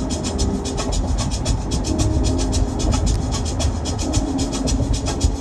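Road and engine noise inside a moving passenger van: a steady low rumble with a fast, even ticking rattle over it.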